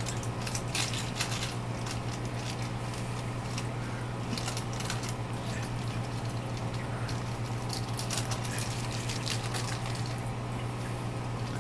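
Water running and gurgling in an aquarium overflow and sump system, with many small irregular crackles over a steady low hum.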